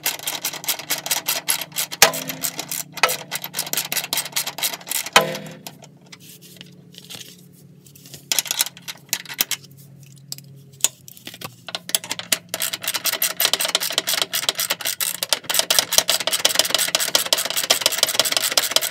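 Hand socket ratchet clicking rapidly as it runs bolts into a running-board mounting bracket, with a couple of louder clacks early on. The clicking eases off for a couple of seconds in the middle, then resumes fast and steady until it stops near the end.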